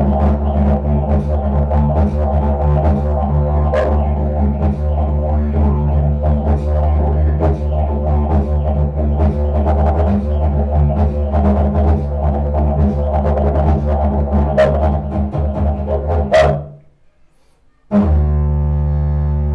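Long ancient Maya-style wooden trumpet reproduction played like a didgeridoo with circular breathing: a loud, low continuous drone with quick rhythmic accents over it. The drone breaks off about three-quarters of the way through, and after a second's gap a steadier drone begins.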